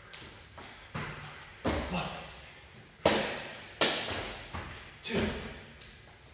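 Thuds of feet landing and hands slapping down on an exercise mat during burpees, five impacts about a second apart, each with a short echo from a large hard-floored room.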